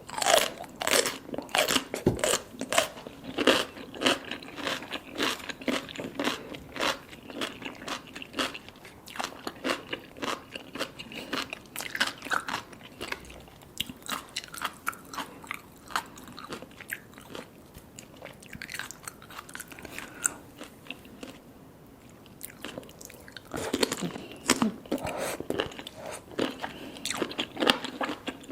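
Close-miked biting and chewing of baby cuttlefish in spicy seafood sauce: soft crunches and wet clicks in quick succession. It eases to quieter chewing a little past the middle, then louder bites come again near the end.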